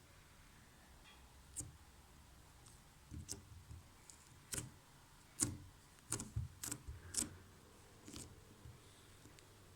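Slime being squeezed and poked, giving about a dozen short, sharp, sticky clicks and pops at irregular intervals, most of them bunched in the middle.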